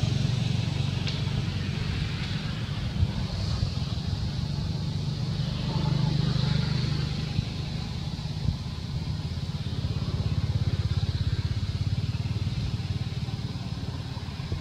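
A motor engine running steadily in the background, a low pulsing hum that swells and fades a little, with a few faint clicks.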